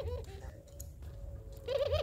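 Puter pelung dove cooing. The end of one call with a fast wavering trill dies away just after the start, and the next call begins near the end.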